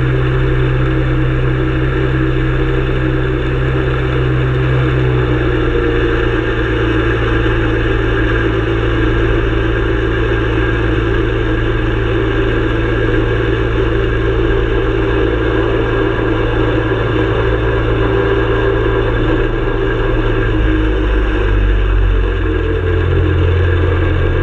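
Ultralight aircraft engine running steadily at close range, with a change in the low engine note about twenty seconds in.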